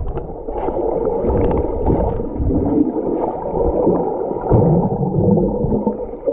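Swimmers jumping and kicking in a pool, heard from under the water: a muffled churning of splashes and air bubbles with a low rumble and scattered crackles.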